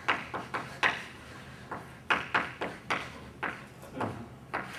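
Chalk writing on a blackboard: about a dozen short, irregular taps and scratches of the chalk stick against the slate.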